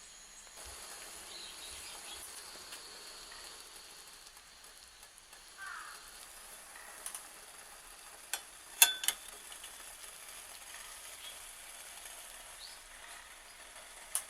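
Water sizzling and simmering under a bamboo steamer set on a cassette gas burner. A few sharp clicks and knocks of handling come about eight to nine seconds in.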